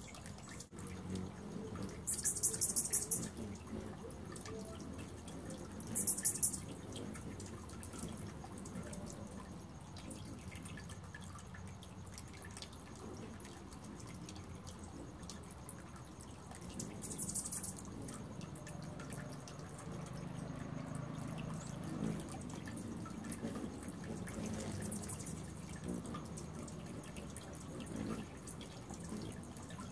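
Hummingbirds at a nectar feeder giving short bursts of rapid, very high-pitched chips. There are three clear bursts, the loudest in the first few seconds, and a fainter one later, over a low steady background hum.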